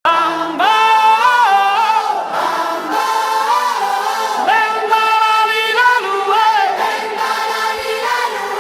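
Music: a song intro of layered sung voices, choir-like, with no drums or bass underneath.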